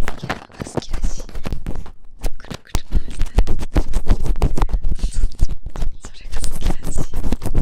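Close-up earpick scratching and scraping inside the ear of a daruma-shaped binaural microphone, a dense run of crackling scrapes and clicks.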